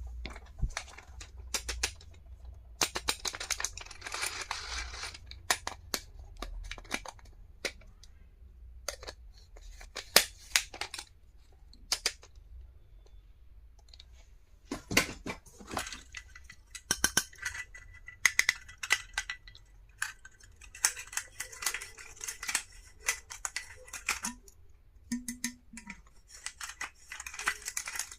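Hands unpacking and handling stationery: crinkling plastic packaging with scattered clicks and taps of small items, in irregular bursts.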